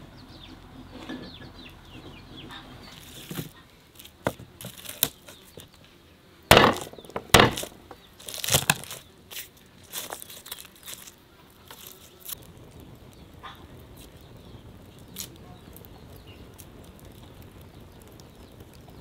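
Garlic bulb broken apart and its cloves peeled by hand on a wooden board: a run of loud sharp cracks and papery crackles about six to eleven seconds in, with quieter scattered clicks either side.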